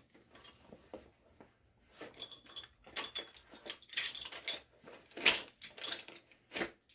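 Clear plastic packaging crinkling and rustling as a set of small metal hand tools is pulled out of it, with light metallic clinks and jingles from the tools. It comes in irregular bursts, loudest about four and five seconds in.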